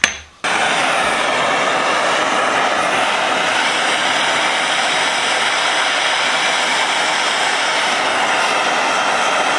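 A steady rushing roar from a heating tool applying heat to a rust-seized adjustable wrench; it starts suddenly about half a second in and holds an even level.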